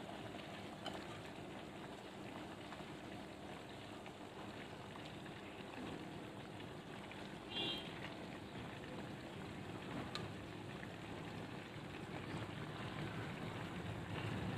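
Fish pieces shallow-frying in hot oil in an uncovered pan: a faint, steady sizzle with fine crackling, like light rain. A brief short sound stands out about halfway through as the tongs move the pieces.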